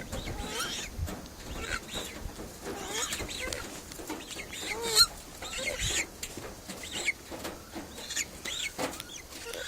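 A crowd of wild birds calling around the people feeding them, many short squawks overlapping. There is one sharp click about five seconds in.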